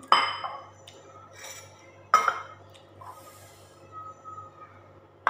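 Ceramic bowls clinking as they are handled on a table: two sharp clinks about two seconds apart, with a few lighter taps between.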